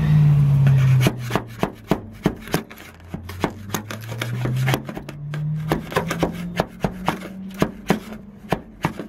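Screwdriver blade scraping and chipping thick body filler off a rusty steel car boot lid, in quick irregular scratches and ticks. A low hum runs underneath, loudest in the first second, slowly falling and rising in pitch.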